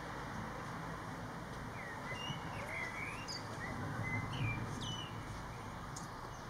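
Male common blackbird singing: short, fluting whistled phrases from about two seconds in, with a few higher squeaky twitters mixed in, over steady low background noise.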